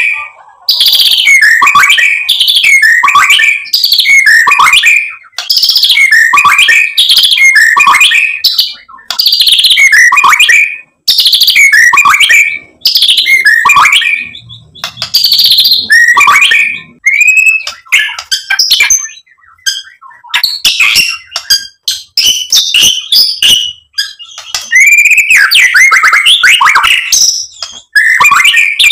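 White-rumped shama singing loudly: short whistled phrases repeated about once a second, then a more varied run of whistles and chips, rising to a dense burst of song near the end.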